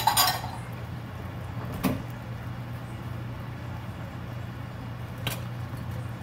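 Kitchen sounds: a steady low hum, a short clatter of knocks at the start, and single knocks about two seconds and five seconds in.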